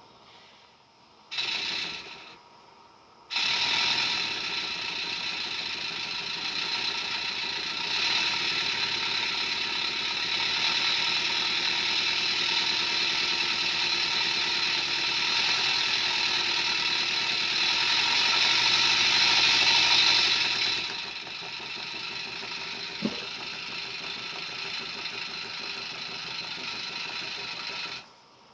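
Roundhouse 'George' 16mm-scale live-steam locomotive running in reverse on blocks, its wheels spinning freely: a steady hiss of steam with the clatter of its mechanism. After a short burst and a pause it sets off, runs loudest through the middle, then eases to a quieter run for the last several seconds.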